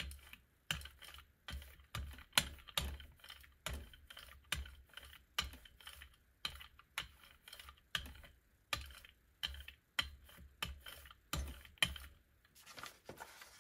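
Rubber brayer rolled back and forth over a Gelli printing plate, spreading paint into a thin tacky layer: a steady run of short sticky rolling strokes, about two a second, stopping shortly before the end.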